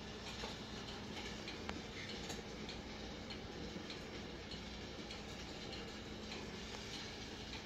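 Home coffee roaster turning beans mid-roast: faint, irregular ticks of beans tumbling in the drum over a low steady motor hum.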